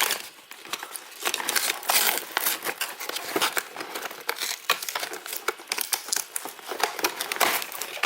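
Plastic packaging crinkling and crackling in the hands, a dense run of irregular little crackles and clicks, as the toy cash register's play money is taken out of its wrapping.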